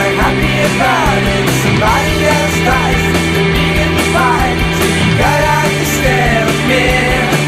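Background rock music: a singing voice over a steady bass line and drums.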